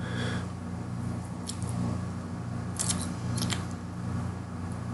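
Computer mouse clicking: a single click about a second and a half in, then two quick pairs of clicks around the middle, over a steady low hum.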